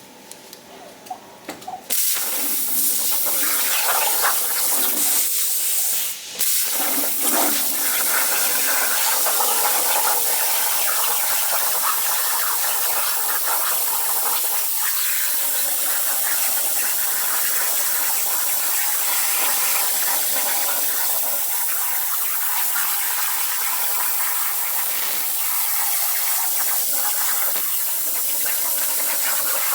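Alpha Arc CNC plasma cutter's torch cutting metal plate: a steady hiss that starts about two seconds in, breaks off briefly near six seconds and starts again.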